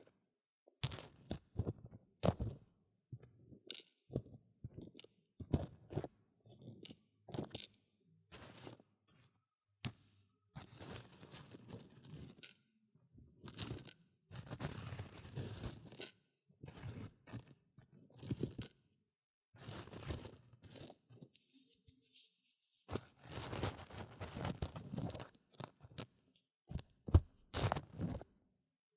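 Dry uncooked rice grains crunching and rustling against a microphone's silicone ear as a cotton swab and fingertips push and stir them. The sound comes in irregular scratchy bursts with short pauses, and the sharpest crunch comes near the end.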